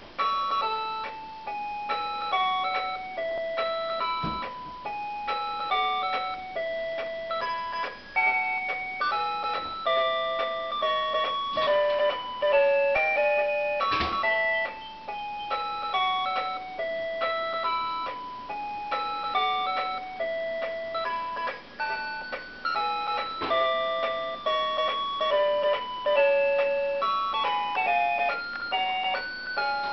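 Animated Mickey and Minnie Mouse Christmas figures playing a tinny electronic melody of clear single notes from their built-in music chip. Three soft clicks fall about ten seconds apart.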